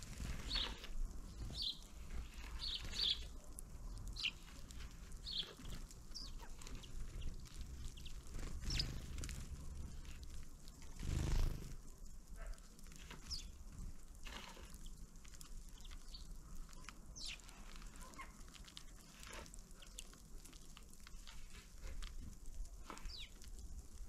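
Small birds at a winter feeder: scattered short, high calls and many faint ticks, with one brief, louder rush of noise about eleven seconds in.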